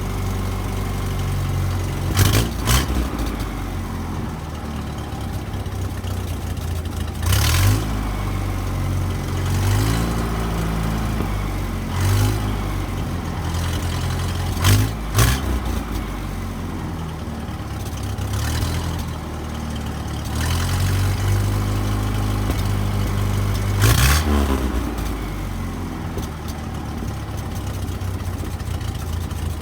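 1970 International Scout 800's engine running through its newly fitted replacement muffler, idling with the throttle blipped up and back down about five times.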